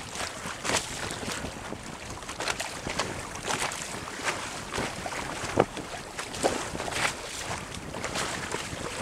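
Bow wave rushing and splashing along the hull of a 1986 Mudhen 17 sailboat under sail, with irregular sharp slaps of water, the loudest about five and a half seconds in. Wind blows on the microphone underneath.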